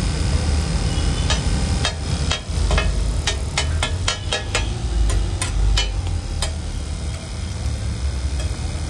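Metal spatula clacking against a large iron griddle: a run of a dozen or so sharp strikes, at times about three a second, that stops about two-thirds of the way through. A steady low rumble runs underneath.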